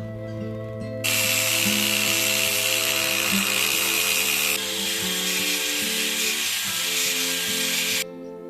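An electric power tool working wood runs steadily with a high whine. It starts abruptly about a second in, eases slightly in level partway through, and cuts off near the end.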